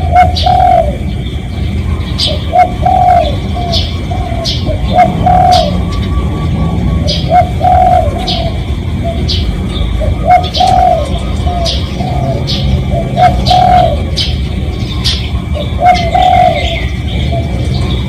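Spotted dove cooing, its low phrase of a few rolling coos repeating about every two and a half to three seconds. Short, sharp high chirps of other small birds come throughout over a low background rumble.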